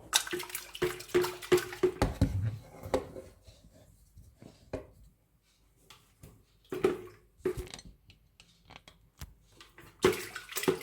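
Vinegar sloshing and swishing inside an electric hot-water pot as its inside is cleaned of white mineral scale. It comes in irregular bursts with small knocks against the pot.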